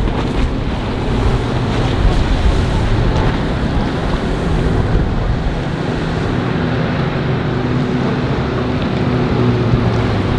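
A motorboat's engines running as it passes through the inlet, over the wash of waves and wind buffeting the microphone. The wind rumble eases about halfway through and the steady engine drone becomes more prominent toward the end.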